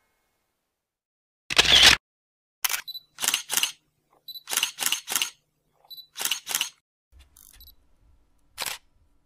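Camera shutter sound effects: a series of sharp double clicks, several preceded by a short high beep, with silence between them. About a second and a half in there is one louder half-second burst of noise.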